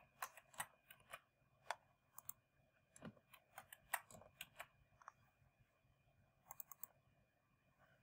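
Faint, irregular clicks and taps of computer keys, a dozen or so in bursts, with a thin steady high-pitched electrical whine underneath.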